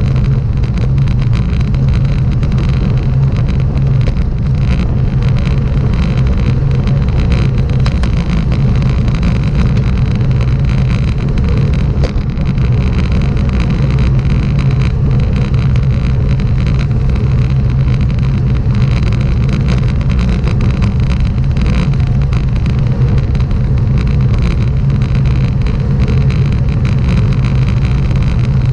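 A motor vehicle's engine running at a steady, even speed, with road and wind noise, as heard from inside or on the vehicle.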